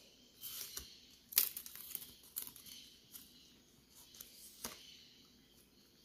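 Acetone-soaked cotton wiped along a thin strip of clear PET bottle plastic: faint scratchy rubbing and crinkling as the strip flexes, with a couple of sharper clicks.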